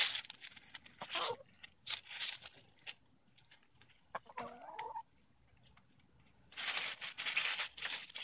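Easter Egger hens foraging: a short hen cluck about four and a half seconds in, between several bursts of rustling as they scratch through dry leaves and grass.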